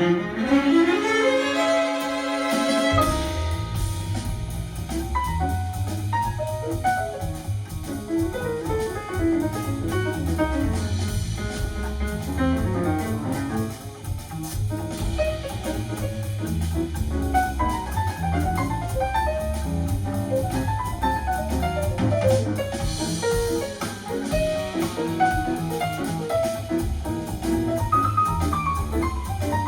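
Contemporary jazz track with drums and bass played through KEF Q Concerto speakers and a subwoofer, driven by a Yamaha R-N800A receiver. The low end drops out briefly under a rising run of notes, then the full band comes back in with heavy bass about three seconds in.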